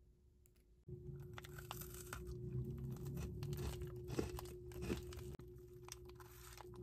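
Plastic wrapper of a pack of chocolate sandwich biscuits crinkling and tearing as it is opened by hand, starting about a second in, with small sharp crackles and a faint steady hum underneath.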